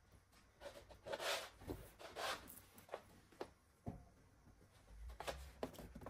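Clothes rustling faintly as they are handled and folded, in short swishes, with a few soft knocks later on.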